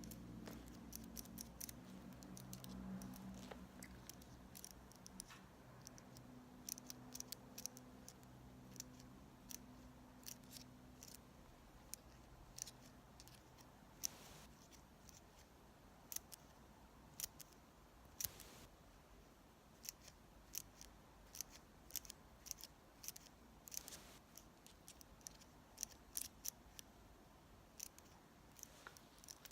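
Scissors snipping in short, crisp, irregular snips, quiet and close to the microphone.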